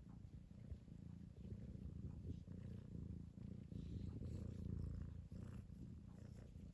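Cat snoring: a low, rough, continuous rumble that grows loudest about four to five seconds in.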